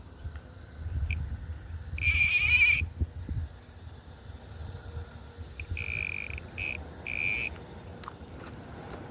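An animal calling at one high pitch: a long wavering call about two seconds in, then three shorter calls close together a few seconds later, over a low background rumble.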